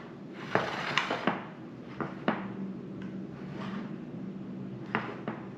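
Kitchen utensils and dishes being handled at a counter: a string of about seven sharp knocks and clinks. A low steady hum runs underneath from about two seconds in until near the end.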